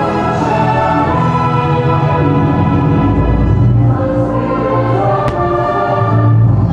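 Orchestral music with a choir singing sustained chords.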